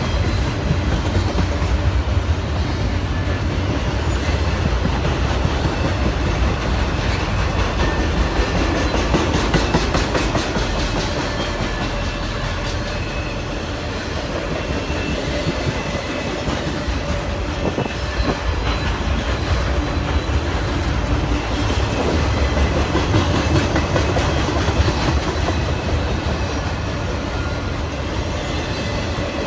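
A train's cars rolling steadily past, a loud continuous rumble of steel wheels on the rails with rhythmic clickety-clack over the rail joints.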